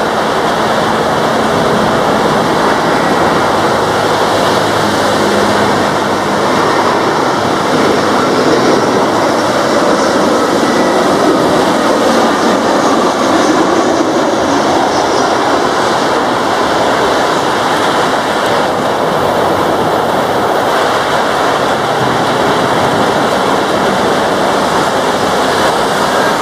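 Airbus A320-214 jet engines, CFM56 turbofans, landing on a rain-soaked runway, blended with the steady rush of heavy rain. A faint whine rises and falls near the middle as the aircraft passes.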